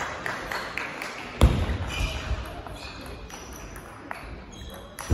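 Table tennis rally: the ball clicking off bats and table in quick succession, with a heavy thump about a second and a half in.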